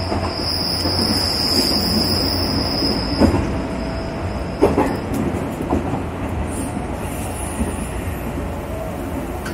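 JR West local electric train running on the track, with a steady high wheel squeal for the first few seconds that fades away. A couple of sharp clicks come from the wheels over rail joints.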